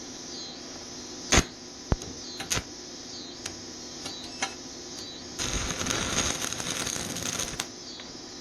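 A few sharp metal knocks and clicks, then about two seconds of dense crackling from a stick-welding arc with an E6011 3/32-inch rod at 75 amps, laying a tack, which cuts off suddenly.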